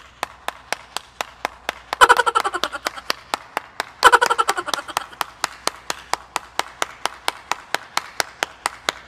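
One person clapping steadily at about four claps a second, with two short, louder bursts of sound about two and four seconds in.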